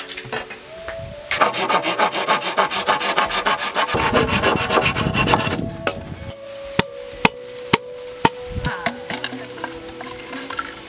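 Hand pruning saw cutting through bamboo, a quick rasping run of strokes lasting about five seconds, followed by four sharp knocks of wood.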